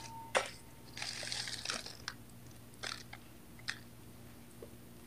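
Plastic bag of ice cubes rustling and crunching as it is handled, followed by a few faint clicks.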